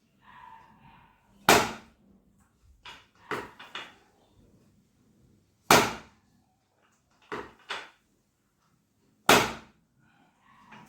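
Three loud, sharp thumps about four seconds apart, with a few softer knocks between them, from chiropractic adjustment thrusts on a patient on the treatment table.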